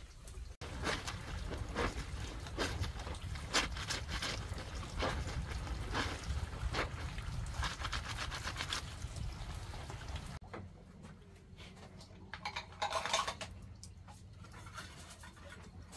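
Clothes being washed by hand in a basin of soapy water: wet fabric squelching and sloshing in irregular strokes as it is rubbed and squeezed. About ten seconds in this stops abruptly, and a quieter stretch follows with a few light knocks.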